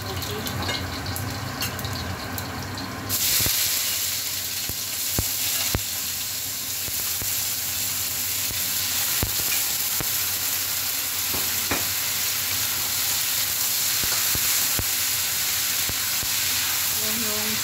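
Garlic crackling in hot oil in a wok. About three seconds in, a sudden loud hiss as the sliced vegetables and meat go into the oil, then steady stir-fry sizzling with the spatula scraping and knocking against the wok.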